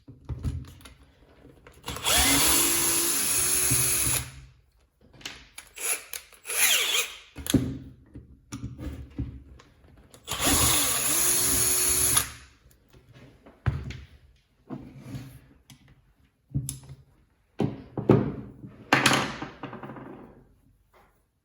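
A power tool's electric motor run twice in short bursts of about two seconds each, spinning up at the start of each, with clicks and knocks of parts being handled in between.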